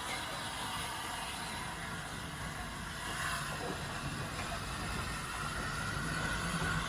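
Low, steady rumble of a railway locomotive running nearby, with a faint hum that grows slightly stronger about halfway through.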